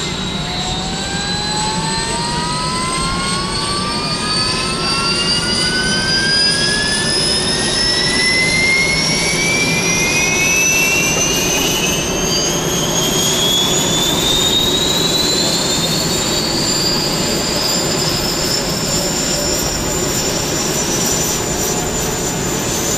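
Turboshaft engines of AH-1S Cobra attack helicopters starting up: a whine rises steadily in pitch for about fifteen seconds and then levels off over a steady low rumble as the rotors come up to speed.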